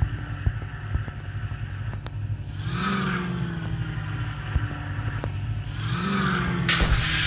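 Land Rover Defender's engine running steadily and revved up briefly twice, with a few scattered knocks and clatters.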